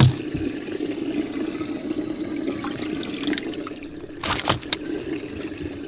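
Water running and splashing in a fishing boat's livewell over a steady low hum. There is a thump at the start and a few sharp knocks about four seconds in.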